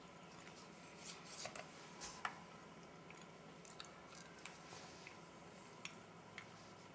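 Faint scraping and small clicks of a table knife spreading cheese spread onto dry, crisp wheat snack bread over a stainless-steel tray, thickest in the first couple of seconds, then a few scattered faint ticks.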